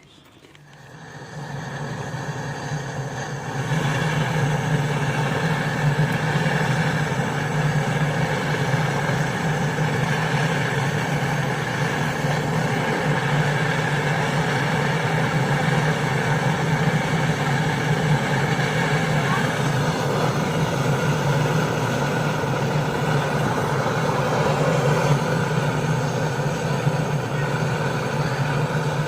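A motor-driven machine starts up and runs with a steady low hum, building over the first few seconds and then holding an even level.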